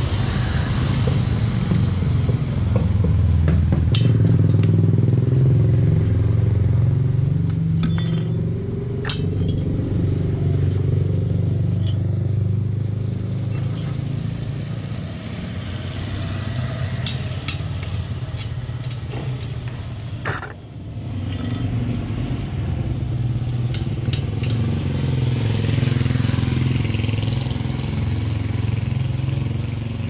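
A low, steady engine hum runs throughout, with a few sharp metallic clinks of steel tire levers against the spoked rim as a dirt-bike front tire is pried off the wheel.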